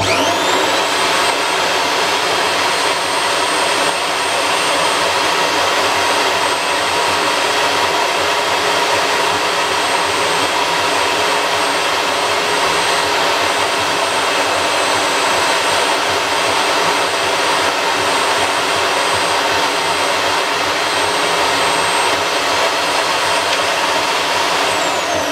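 Makita 2107F portable bandsaw with an 18-teeth-per-inch blade starting up with a quick rising whine, then running steadily while cutting through a small piece of Corian solid-surface material. It begins to wind down at the very end.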